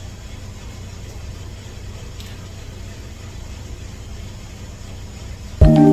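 A steady low hum, then background music with bell-like tones starting suddenly near the end.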